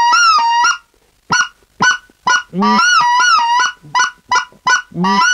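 Short-reed goose call blown in a white-fronted goose sequence that combines the ordinary yodel with clucks. Drawn-out honks break from a low note up to a high one, and quick short clucks fall between them: two spaced clucks after the first honk, then a run of three after the second.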